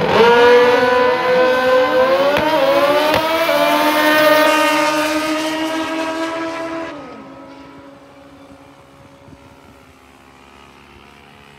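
Two drag-racing motorcycles launching off the line at full throttle, their engines climbing in pitch, dropping at each upshift and climbing again. The sound fades out about seven seconds in as the bikes run away down the strip, leaving a faint distant engine note.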